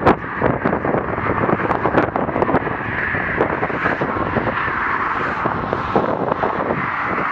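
Highway traffic passing on the bridge deck, a steady rush of tyres and engines, with wind buffeting the microphone in frequent crackling gusts.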